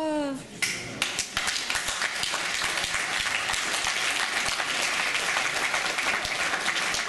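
Crowd applauding, many hands clapping at once, starting about a second in and holding steady.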